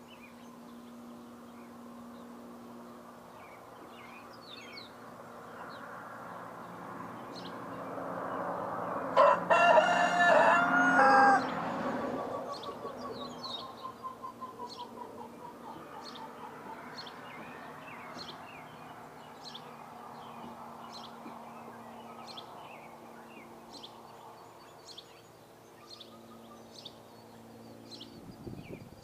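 A rooster crows once, loud, lasting about two seconds near the middle, while small birds chirp in short, high notes throughout.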